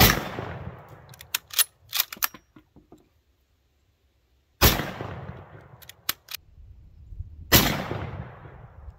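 Mosin-Nagant bolt-action rifle firing 7.62x54R soft-point rounds: three shots, at the start, about four and a half seconds in and about seven and a half seconds in, each trailing off in a long echo. After the first two shots come quick sharp metallic clicks as the bolt is worked.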